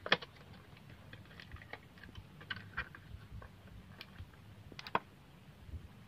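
Scattered light clicks and taps from small plastic parts and hand tools being handled while a fiber optic fast connector is fitted. The sharpest click comes about five seconds in, over a low steady hum.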